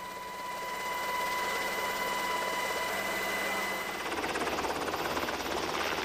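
Helicopter running: a steady mechanical rush with a steady high tone over it, and a fast, even pulsing beat in the second half.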